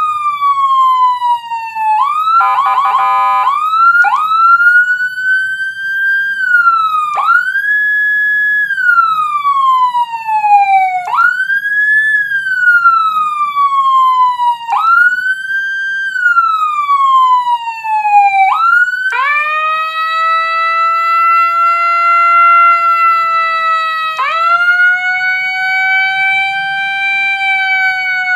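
Electronic siren tones from a police-escort siren module (AS 920, Whelen HHS 3200 sounds) through a TOA horn speaker. The tone cycles through slow wails that rise quickly and fall slowly every few seconds, with a short rapid warble about two seconds in. From about two-thirds of the way through, two tones sound together at a steadier, gently drifting pitch.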